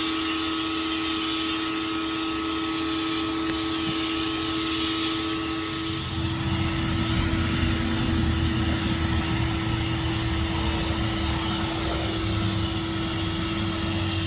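Greenworks 1700 psi electric pressure washer running and spraying: a steady motor-pump hum over the hiss of the water jet. About six seconds in, a lower, uneven rumble joins.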